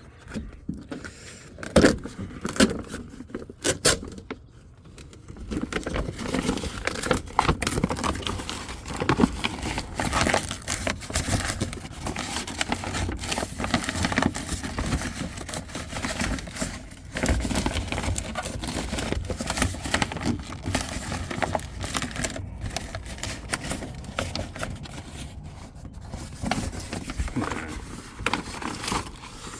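Plastic moisture barrier sheet being pulled off a car door's inner frame, crinkling, tearing and scraping, with a few sharp clicks in the first few seconds.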